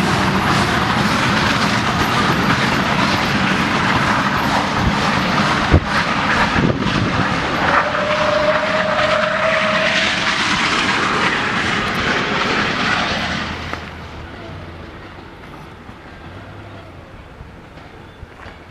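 Steam-hauled passenger train rolling out of a station: a steady running noise of the coaches on the track, with a few knocks and a brief squeal about eight seconds in. The noise falls away suddenly about thirteen seconds in as the train draws off into the distance.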